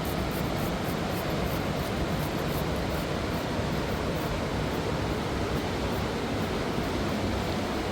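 Fast mountain river rushing steadily over rocks.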